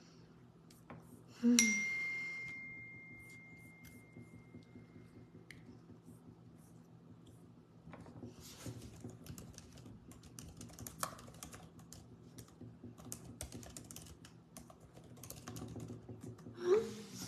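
Typing and key clicks on a laptop keyboard, coming in bursts, strongest in the second half. About a second and a half in, a chime rings once on a single tone and fades away over about four seconds.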